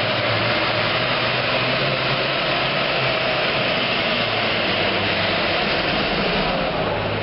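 Super Farm pulling tractor's modified diesel engine running loud and steady at full power, pulling the sled.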